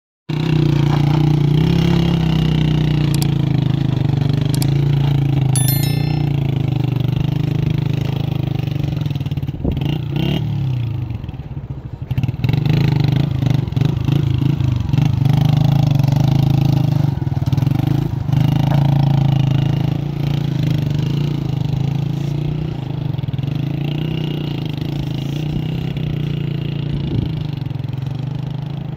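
Small motorcycle engine running steadily as the bike is ridden slowly over a rough, rocky trail. The note is unsettled, with irregular knocks, around ten to twelve seconds in, and it fades a little near the end.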